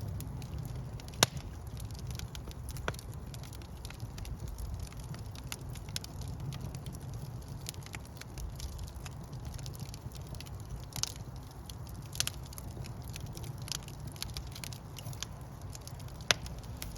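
Wood logs burning in a fireplace: a steady low rumble of flames with scattered crackles and pops, a sharp pop about a second in and another near the end.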